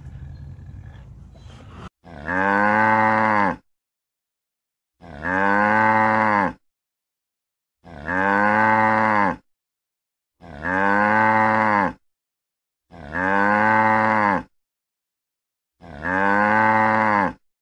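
A cow mooing: the same long moo repeated six times, starting about two seconds in, each lasting about a second and a half and rising then dropping slightly in pitch, with dead silence between moos.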